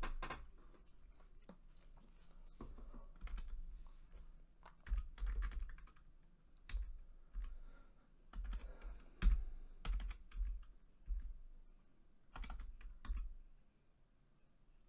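Typing on a computer keyboard: irregular runs of keystrokes with short pauses between them, as numbers are entered into a spreadsheet. The clicking dies down near the end.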